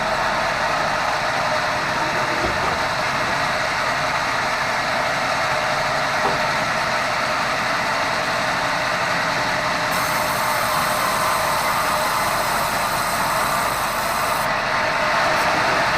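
Sawmill band saw and its drive running steadily, a loud continuous mechanical noise, while red meranti timber is being sawn.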